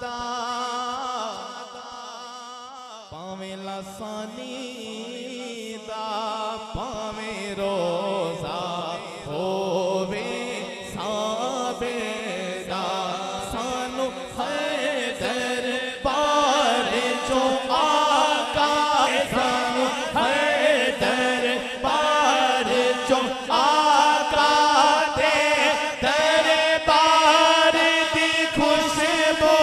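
A man's voice singing a naat through a microphone and PA, in long drawn-out melodic phrases over a steady low drone, growing louder over roughly the first half.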